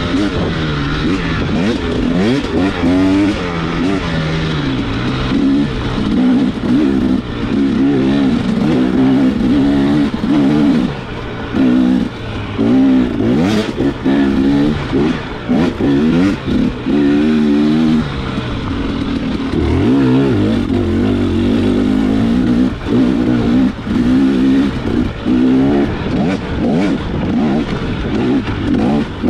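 Enduro dirt bike engine revving up and down over and over as the throttle is worked on a trail, with short drops in level where the throttle is rolled off.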